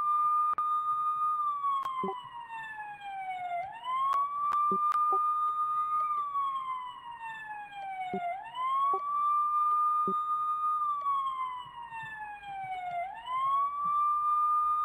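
Police siren wailing. Each cycle climbs quickly to a high held note, holds it about a second and a half, then slides slowly down, repeating about every four and a half seconds.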